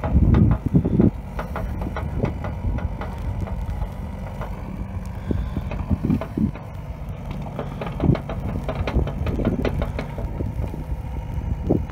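Mini excavator's diesel engine running steadily, with a cluster of loud knocks near the start and scattered clanks later.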